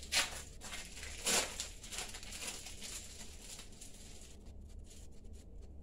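Soft rustling and light handling noises from a cheese slice being handled and laid on a filled tortilla wrap. Two louder rustles come in the first second and a half, then a few faint ticks.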